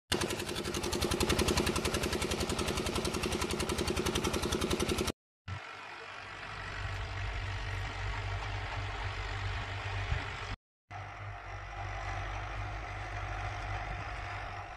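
Water gushing from a tubewell outlet pipe over a fast, even engine beat. After a short break, a Fiat 480 tractor's diesel engine runs steadily at a low pitch while it pulls a cultivator across a ploughed field.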